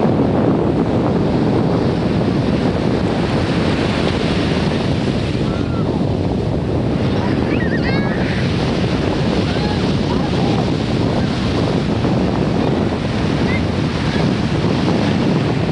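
Steady rush of wind on the microphone over the wash of ocean surf on the beach. A few faint high calls rise and fall about halfway through.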